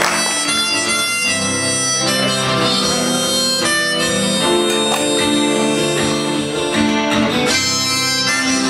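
Live band music: harmonica playing held notes and chords over a strummed acoustic guitar.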